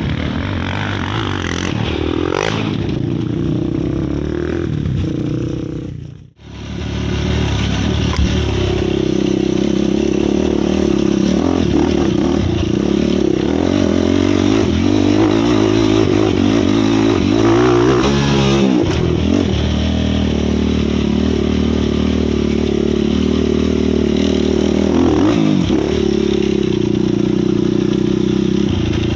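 450-class sport quad's single-cylinder four-stroke engine running under throttle, revving up and easing off, with one rev rising and falling near the middle. The sound cuts out for a moment about six seconds in.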